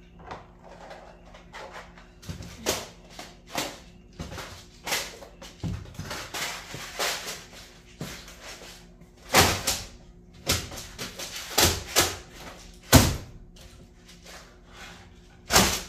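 Tools and parts being handled and set down: a string of irregular knocks, clunks and scrapes, with the loudest thuds about nine and thirteen seconds in and just before the end.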